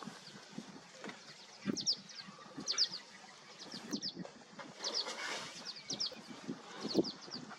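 Small birds chirping: short, high, down-slurred notes repeated in quick clusters. Underneath are soft thuds and rustles from elephants walking through grass.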